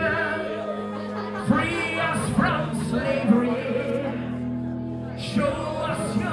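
Power metal band playing live: held guitar and bass chords under drums with cymbal crashes, and a male voice singing over them, heard from the audience floor.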